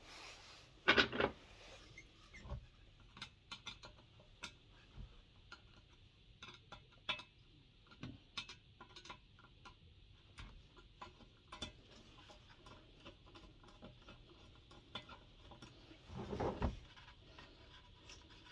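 Scattered light clicks and taps of tools and small parts being handled while a diesel heater is dismantled and its control unit removed, with two louder handling noises, one about a second in and one near the end.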